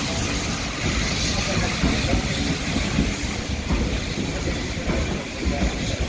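Heritage railway train running on the line: a steady low rumble with irregular knocks.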